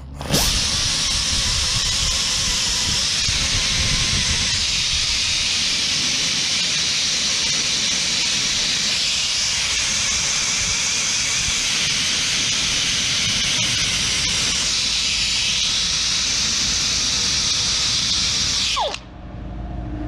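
Power grinder grinding down a new brake pad that is too big to fit, a loud steady hiss. It starts suddenly just after the beginning and the motor winds down with a falling whine about a second before the end.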